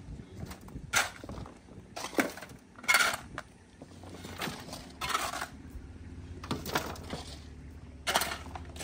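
Shovels scraping into rocky soil and tossing the rocks and dirt into metal wheelbarrows, with a sharp scrape and clatter every second or two.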